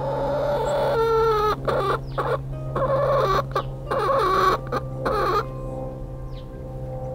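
Easter Egger hen on her nest before laying, giving a run of drawn-out clucking calls broken by short pauses. The calls stop about five and a half seconds in, leaving a steady low hum.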